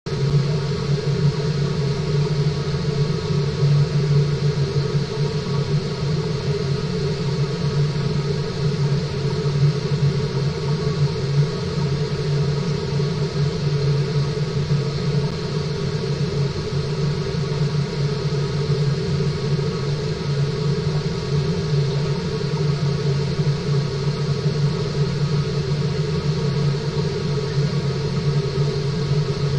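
Steady underwater machine hum from the salmon tank's water-circulation equipment: a constant low drone with a few fixed higher tones over an even hiss of flowing water, unchanging throughout.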